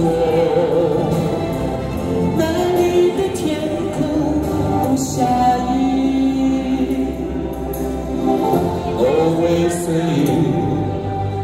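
A woman singing a Chinese pop song into a microphone over a backing track, played through small portable speakers.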